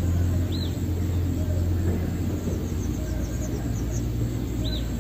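Outdoor field ambience: a steady low rumble, with a bird's short high call about half a second in and again near the end, and a run of quick high chirps in the middle.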